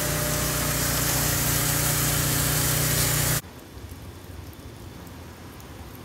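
Maple sap boiling hard in a stainless evaporator pan: a loud, steady rush with a low hum, cutting off suddenly a little over three seconds in. After that a wood fire crackles quietly in an open stove firebox.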